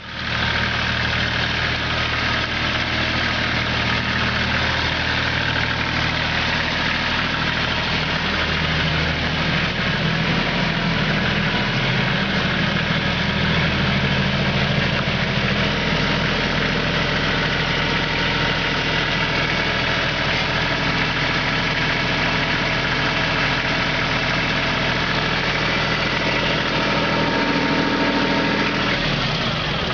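Kubota L3540 HST tractor's three-cylinder diesel engine idling steadily, its note changing slightly about nine seconds in.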